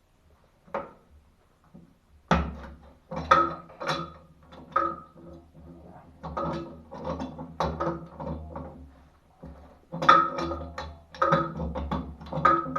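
Wrench working on the old valve's threaded metal pipe fittings: irregular clanks and scrapes, several a second, each leaving the pipework ringing briefly.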